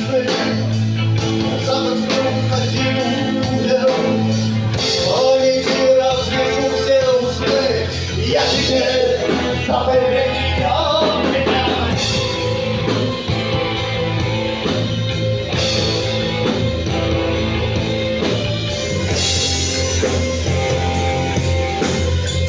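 Live rock band playing a song with electric guitars and drums, a melodic line winding over a steady bass.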